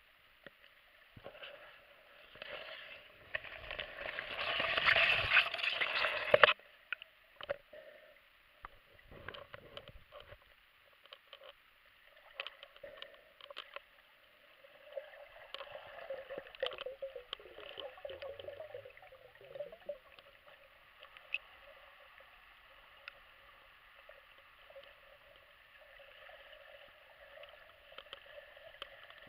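Muffled underwater sound picked up by an action camera in its waterproof case as a snorkeler moves through the water: gurgling and sloshing with scattered clicks. A louder rush of noise builds about three seconds in and cuts off suddenly a few seconds later.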